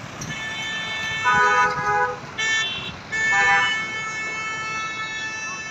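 Several vehicle horns honking, some overlapping. Each is a steady tone at its own pitch, lasting from under a second to about two and a half seconds, the longest near the end.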